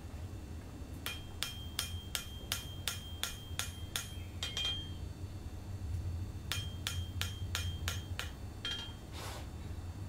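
Ball-pein hammer striking hot rasp steel on an anvil, thinning the back of a knife blade. Each blow rings briefly. There are two runs of quick, even blows at about three a second, about eleven in the first and seven in the second, with a pause of under two seconds between them.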